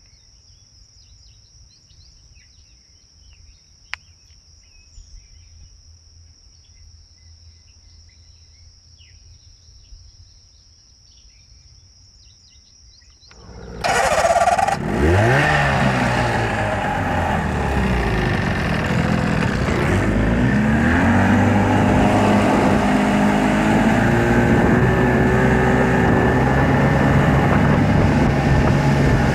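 A steady high insect drone with a few faint chirps, then, about halfway through, a jon boat's outboard motor cuts in loud, rising in pitch as it revs up and gets the boat under way, and settles into a steady run at speed.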